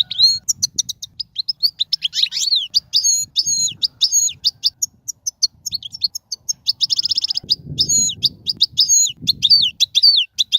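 Goldfinch singing: a fast, continuous run of short, sliding twittering notes, with a brief buzzy trill about seven seconds in.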